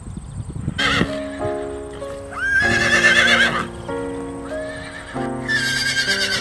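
Horse whinnying three times, a short call and then two long, quavering ones, with a few hoof clops near the start, over background music.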